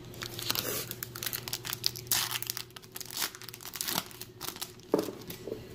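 Foil wrapper of a Topps baseball card pack being torn open and crinkled in the hands: a run of irregular crackles and rustles.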